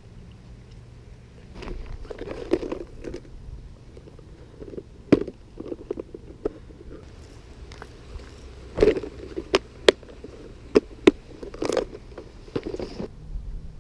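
Irregular sharp clicks, taps and short scraping rubs of handling close to the microphone, with the loudest clicks about five seconds in and a quick series near the end.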